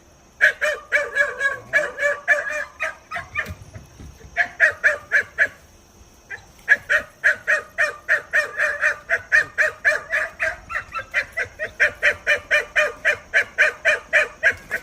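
Two-month-old Kumano hunting-dog puppies barking at a wild boar: rapid high-pitched yaps, about four a second, in runs with two short pauses.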